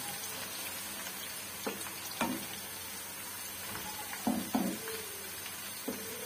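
Sliced onions sizzling in hot oil in a nonstick wok as they brown, stirred with a wooden spatula that knocks against the pan five times.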